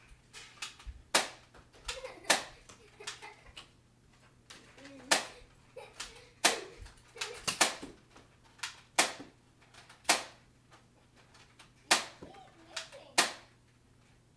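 Nerf foam-dart blasters firing and darts smacking surfaces: a dozen or so sharp cracks at irregular intervals, about a second apart, with faint children's voices between them.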